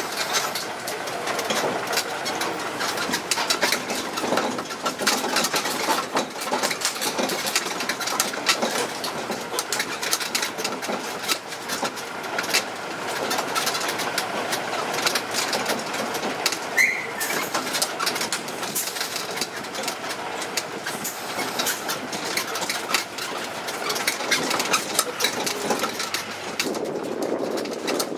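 Ride noise aboard an open tourist road train: the towing tractor's engine running under a steady rattle and clicking from the carriages moving over the road. A brief high chirp sounds about halfway through.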